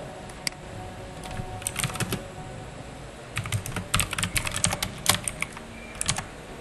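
Typing on a computer keyboard: irregular clusters of key clicks, the densest run a little past the middle.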